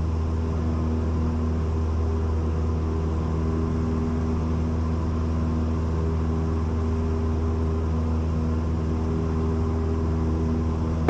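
Cessna 172's piston engine and propeller droning steadily at climb power as the plane climbs out after takeoff, with an even, unchanging pitch.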